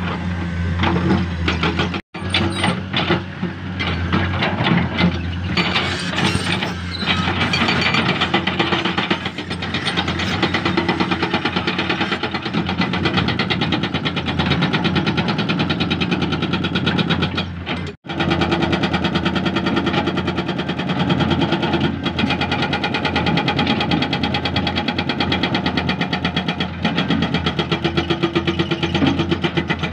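Hydraulic excavator's diesel engine running steadily under load while it digs and breaks limestone, with rocky scraping mixed in. The sound cuts out briefly twice, about 2 seconds and 18 seconds in.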